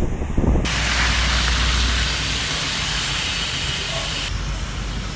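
Typhoon wind buffeting the microphone in gusts, then, after a sudden change, a steady loud hiss of wind-driven rain that changes again abruptly near the end.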